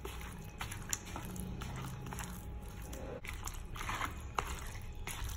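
Hand mixing raw chicken pieces with a flour and spice coating in a plastic bowl: soft wet squishes and small irregular clicks, over a low steady hum.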